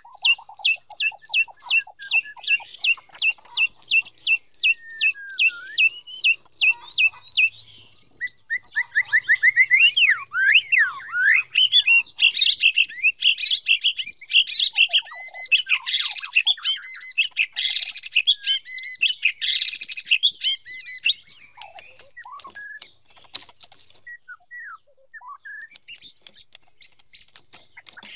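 White-rumped shama singing: a fast run of repeated high notes, about three a second, then a dense stretch of varied whistles and trills, thinning to scattered single notes in the last few seconds.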